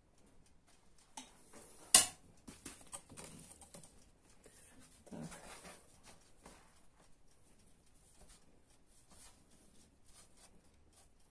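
Quiet kitchen handling sounds as yeast dough is pinched closed around cabbage filling on a wooden board, with one sharp knock about two seconds in and a brief rustle around the middle. A clock ticks faintly underneath.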